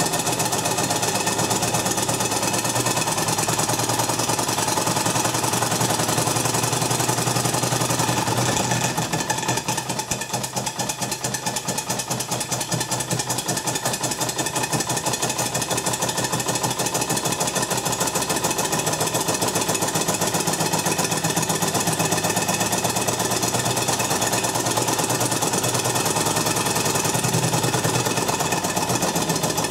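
Live-steam 1:10 scale Markie plough engine model running fast, its rapid even beats making a steady mechanical rhythm. The beat eases for a second or two about nine seconds in, then picks up again.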